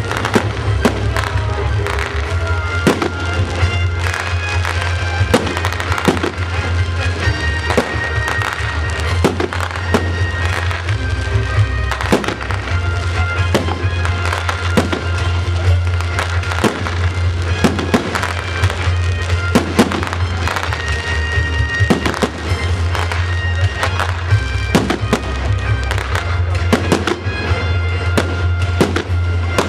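Fireworks display: shells and stars bursting in quick succession, several bangs a second, over music.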